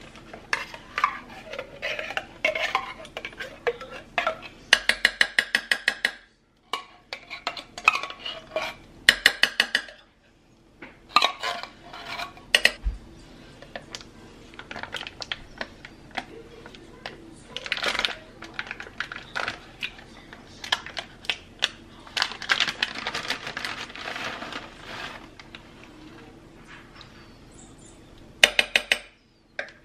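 A spoon clinking and scraping against a slow cooker's crock as ingredients are added and stirred, in irregular clusters of quick clicks and clatters.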